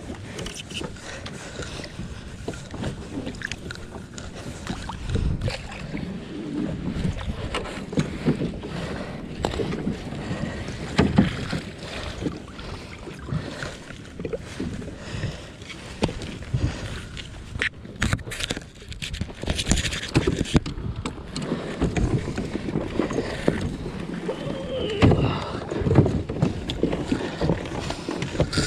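Kayak on the water: splashing and sloshing against the hull, with irregular knocks and bumps.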